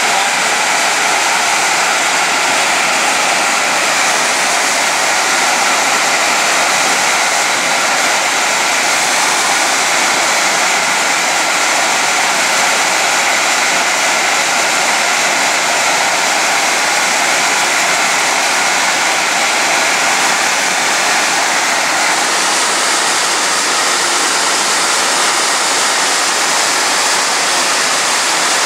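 Steam venting from a 600 MW power-plant boiler: a loud, steady hiss that holds unbroken throughout.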